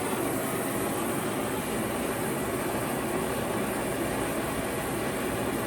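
A gas torch flame burning with a steady, even rush, heating a spare radiator cap to melt it down.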